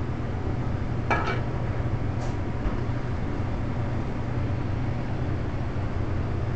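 Steady low drone of a commercial kitchen, from the gas range's open burners and the exhaust ventilation, with a short metallic clank about a second in and a fainter click a second later.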